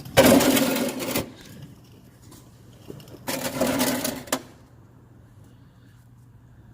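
A power wrench zipping out transmission-to-engine bolts in two bursts of about a second each.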